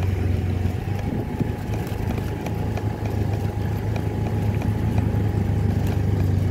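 Motorcycle engine running at a steady speed, heard from on the bike, with many light knocks and rattles from riding over a rough, broken path.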